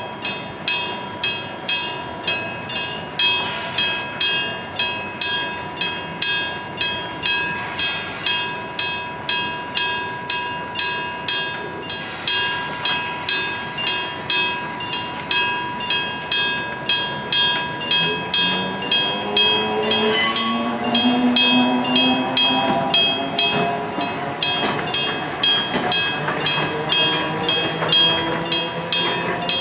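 Electric gong-type level-crossing bell striking steadily at about two strokes a second, each stroke ringing. From about eighteen seconds in, a train's rising engine note joins it.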